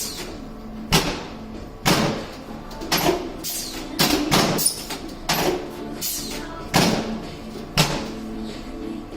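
Chiropractic adjustment thrusts: a run of sharp thuds and clunks, about one a second, over quiet background music.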